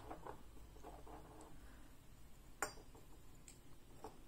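Porcelain vases being handled and set down on a table: a few soft clicks and one sharper knock about two and a half seconds in.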